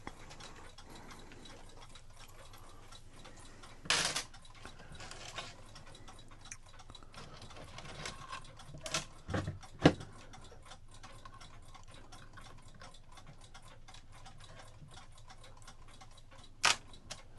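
Clock ticking steadily and quietly. A few louder metallic clicks from clock parts and chain being handled come about four seconds in, twice around nine to ten seconds, and again near the end.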